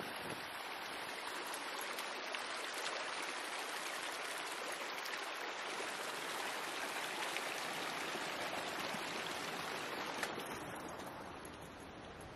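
Shallow rocky stream rushing over stones, a steady hiss of running water that fades near the end.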